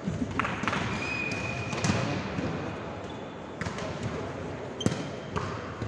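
Volleyball play: a handful of sharp smacks of the ball being struck and landing, spread unevenly over a few seconds, over a background of spectators' voices.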